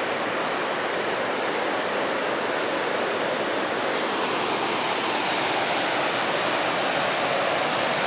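Waterfall cascading down a sloping rock face: a steady rush of water, slightly louder in the second half.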